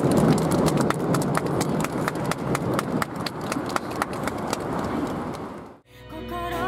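A small crowd clapping, a dense patter of many hand claps that fades out near the end. It gives way to a recorded song with a sung melody in the last moment.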